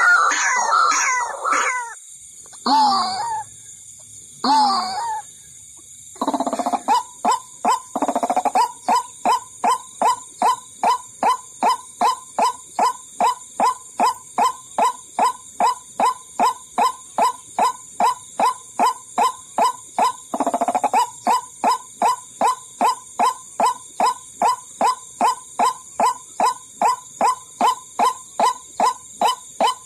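White-breasted waterhen (ruak-ruak) calls played as a trapping lure: a burst of overlapping calls, two single calls, then a long, even run of short repeated notes at about two a second.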